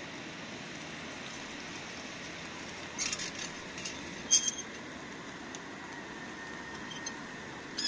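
Steady hiss of rain, broken by a few light clinks and knocks: a short cluster about three seconds in, one sharp clink, the loudest sound, at about four and a half seconds, and more near the end.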